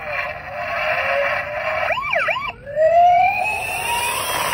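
Toy ambulance's electronic siren set off from its roof buttons: a few quick up-and-down wails about two seconds in, then a long rising wail.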